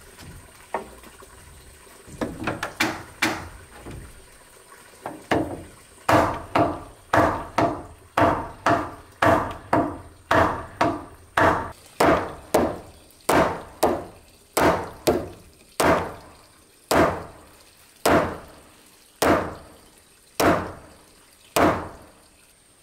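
Hammer blows driving a wooden crossbeam's tenon into a mortise in a timber post: a few scattered knocks, then a long run of sharp, ringing strikes about two a second, spacing out to about one a second near the end.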